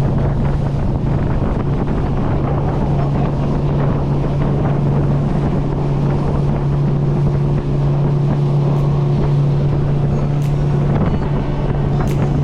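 Outboard motor on a Stabicraft 1450 boat running steadily under way, a constant engine hum over the rush of water and wind.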